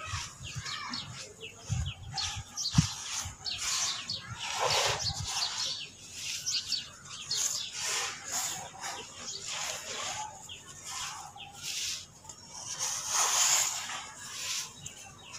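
Soft charcoal chunks crumbled by hand, the bits falling onto a heap on a cement floor in repeated gritty, crackly rushes. There is one sharp click about three seconds in.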